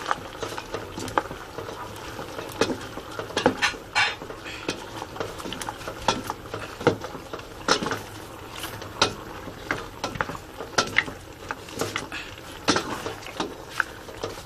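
Irregular clicks and taps from a pot of simmering seafood kare-kare stew, one or two a second, over a steady low hiss.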